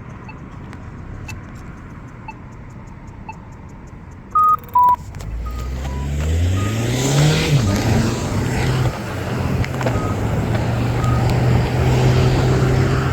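Polara iDS2 accessible pedestrian push-button ticking its locator tone about once a second, then two loud short electronic beeps, a higher and then a lower one, about four seconds in. A car then pulls away and accelerates, its engine rising in pitch, dropping at a gear change and climbing again.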